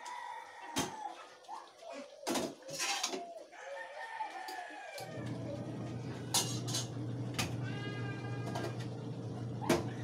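Chickens clucking and a rooster crowing, mixed with sharp clinks of a ladle against a steel cooking pot as the stew is stirred. A steady low hum starts about halfway through.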